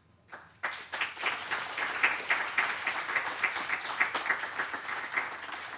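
Audience applauding: many hands clapping, starting about half a second in and fading near the end.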